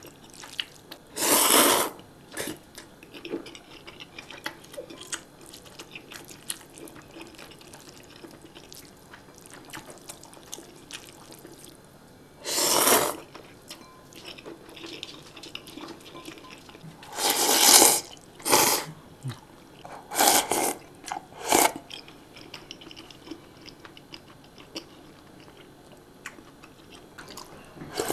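Close-miked eating of instant ramen: about six loud wet slurps of noodles, each about half a second, with quiet chewing and small mouth clicks between them.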